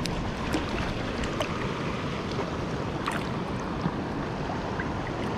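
Shallow river current rushing steadily over a riffle, with a few faint clicks from handling.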